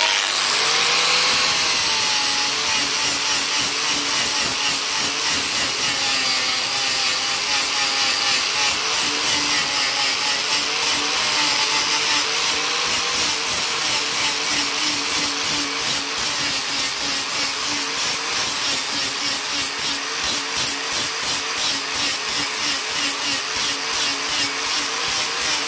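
Hitachi angle grinder with a flap disc switched on and grinding a MIG weld bead flat on steel. Its motor whine wavers in pitch as the disc is pressed onto the metal, with a steady gritty hiss on top, and in the second half the sound pulses as the disc is worked across the weld.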